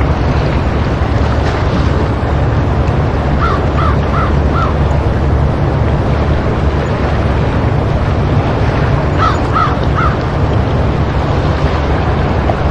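Steady rush of sea waves breaking against rocks. A bird calls in a quick run of four notes about three and a half seconds in, and three more about nine seconds in.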